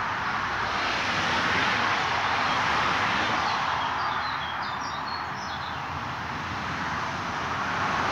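Steady rushing outdoor background noise, with a small bird's short series of high chirps about halfway through.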